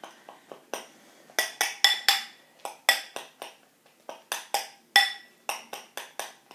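A utensil clinking repeatedly against a glass bowl while mashing banana into squirty cream, two or three sharp clinks a second at an uneven pace, each with a short ring.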